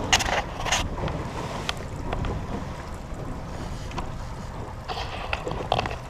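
Wind buffeting the microphone on a boat at sea over a steady low rumble, with brief noisy gusts about a second in and again near the end.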